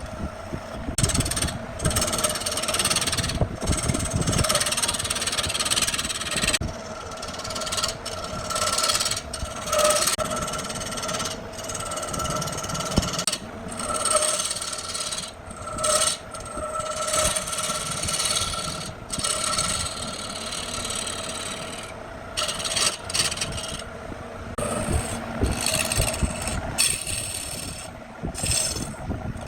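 A wood lathe running with a steady whine, while a tool or abrasive scrapes against the spinning workpiece in repeated passes. The scraping breaks off briefly many times as the tool lifts away.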